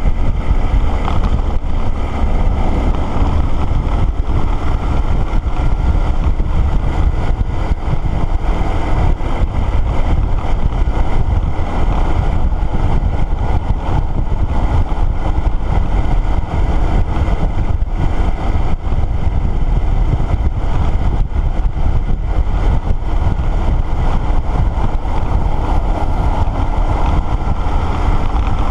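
Motorcycle riding along a road at steady speed: loud wind rush over the microphone with the engine and road noise underneath, unbroken throughout.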